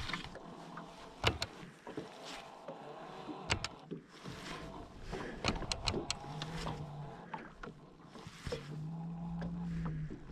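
A small electric motor hums steadily twice, briefly about six seconds in and longer about nine seconds in, among scattered clicks and knocks of handling in a boat.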